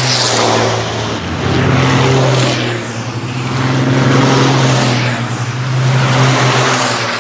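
Diesel race trucks running hard on a circuit, their engines giving a steady low drone. The sound swells and fades several times as trucks pass.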